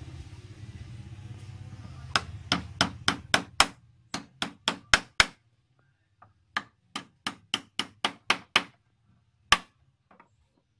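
Small hammer tapping on a carved wooden piece: a quick run of about a dozen sharp blows, a short pause, then about eight more and a single blow near the end. A low steady hum under the first two seconds stops as the tapping begins.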